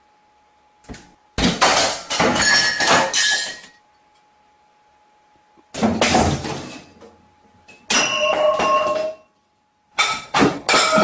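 Four bursts of clattering and knocking, each one to two seconds long and the first the longest, with brief ringing tones in the later ones, all separated by short quiet gaps.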